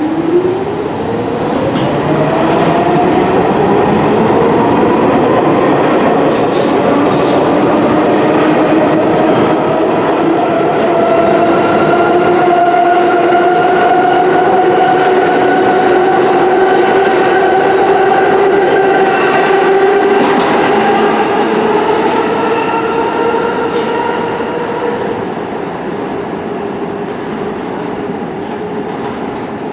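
Subway train pulling out: its traction motors whine, rising in pitch as it accelerates, over a steady rumble of wheels on rail, with a brief high wheel squeal. The whine dies away near the end.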